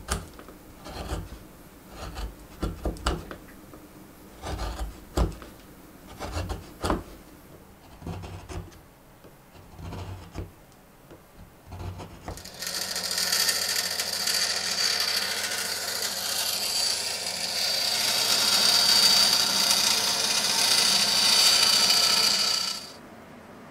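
A wood chisel paring shavings from a wooden ukulele part by hand, a series of short, irregular scraping cuts. About twelve seconds in, an electric saw starts cutting a thin wooden plate for a ukulele body. It runs steadily with a high whine and stops abruptly shortly before the end.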